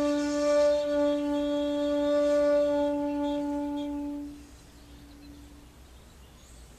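Shakuhachi (Japanese bamboo flute) holding one long, steady breathy note, which stops about four seconds in; faint room tone follows.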